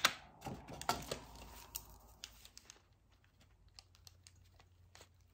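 Drawing pencils being handled: a few sharp clicks and taps in the first two seconds as pencils are set down and picked up, then fainter, quicker ticks and light scratching of pencil on sketchbook paper that fade out after about three seconds.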